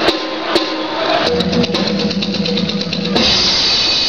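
Music with heavy drumming playing for a group dance: two loud drum strikes, then a fast run of drumbeats over a held low tone, and the music shifts to a brighter sound about three seconds in.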